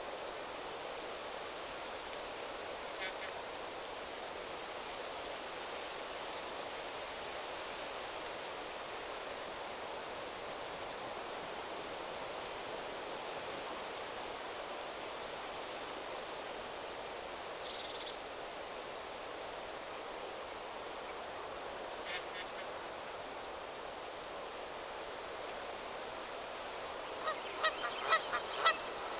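Steady wind rustling through forest trees, with a few faint, scattered bird chirps. Near the end a flock of water birds starts calling loudly, several calls a second.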